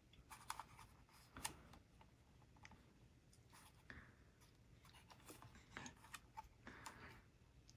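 Faint, scattered clicks and rubbing from a plastic model kit being handled and turned over in the hands; otherwise near silence.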